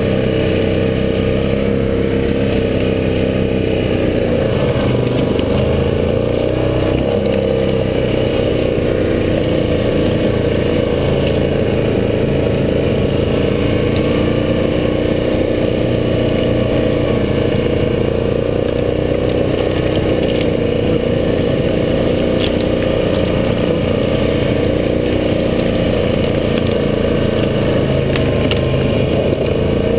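2014 Yamaha Grizzly ATV's engine running steadily as the quad rides along a trail, its pitch dipping and recovering a few seconds in as the throttle changes.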